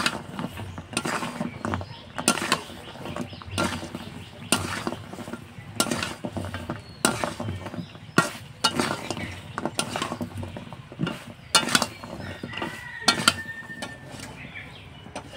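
Metal spatula scraping and knocking against a metal kadai in repeated strokes, about one or two a second, as fried goja sticks are turned and coated in jaggery syrup.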